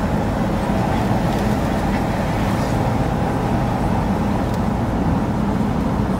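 Steady engine and road noise heard inside the cab of a small Ram pickup cruising at highway speed.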